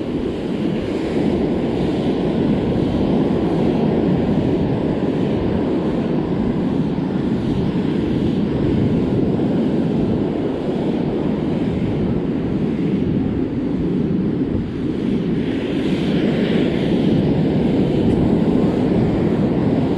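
Loud, steady wind buffeting the microphone over the wash of breaking surf waves on the beach, with a brief brighter hiss late on.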